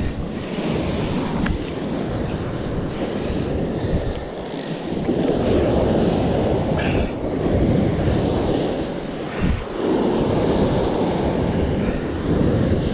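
Sea waves surging and breaking against a rocky shore, with wind buffeting the microphone. The wash swells louder about five seconds in and again about ten seconds in.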